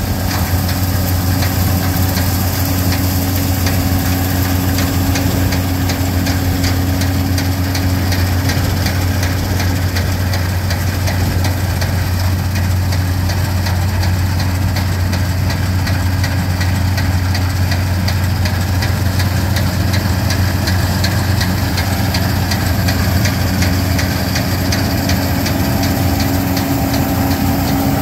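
New Holland TR86 combine running steadily at work harvesting soybeans: a constant, loud low drone of the engine and threshing machinery.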